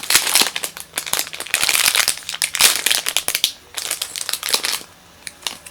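Thin plastic packaging crinkling as a squishy toy in its bag is handled, in quick irregular crackles that die away about five seconds in.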